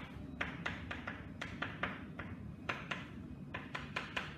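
Chalk tapping and scratching on a chalkboard in short, irregular strokes, about three a second, as writing goes on.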